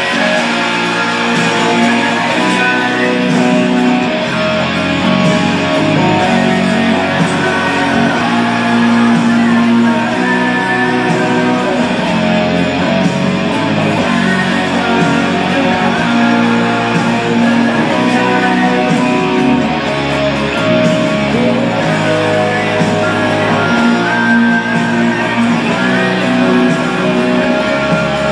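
Electric guitar played through an amplifier: held, melodic notes over a bass line.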